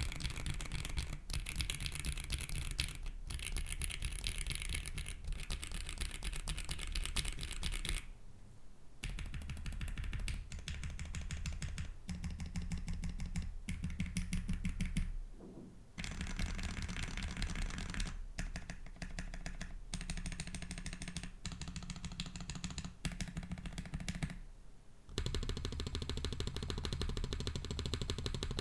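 Mechanical keyboard with linear switches being typed on quickly: dense runs of key clacks, broken three times by a pause of about a second.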